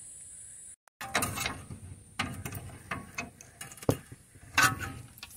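Hand tools clicking and clinking on the steel lower ball joint and control arm of a 1995 Holden Rodeo's front suspension during the ball joint's removal: irregular metal clicks, with a sharper knock about four seconds in.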